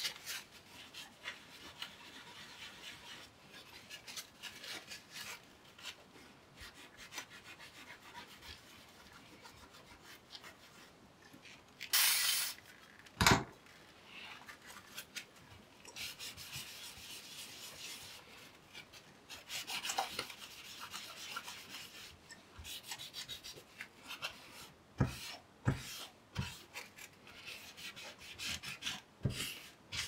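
A cloth rubbing and scrubbing on the copper contact plates of a laptop heatsink, wiping off old thermal paste with isopropyl alcohol. Partway through there is a louder rustle and a sharp knock, with a few light knocks of the heatsink on the desk near the end.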